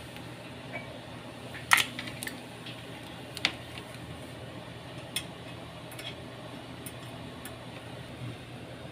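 Light metallic clicks and taps from hands handling the wire terminals and spade connectors on an electric stove's heating element. The sharpest click comes about two seconds in, with others about three and a half and five seconds in and a few faint ones later. A low steady hum runs underneath.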